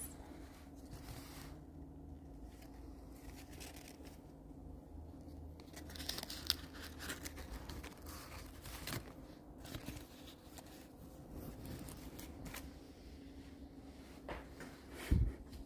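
Faint rustling, crinkling and light clicks of something being handled, scattered through the stretch, over a steady low hum, with a soft thump near the end.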